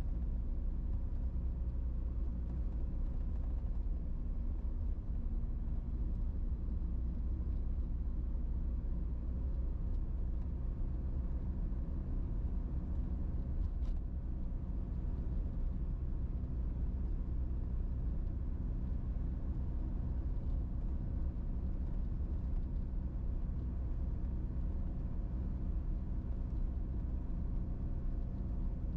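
Motor vehicle cruising at a steady speed on a paved road: a constant low engine and road rumble with a steady drone that neither rises nor falls.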